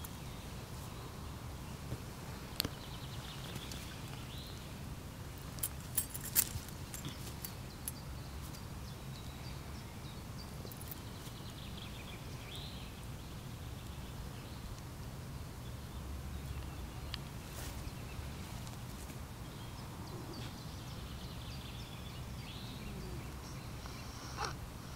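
Outdoor background noise: a low steady rumble with faint high chirps now and then, and a few sharp clicks about two and a half and six seconds in.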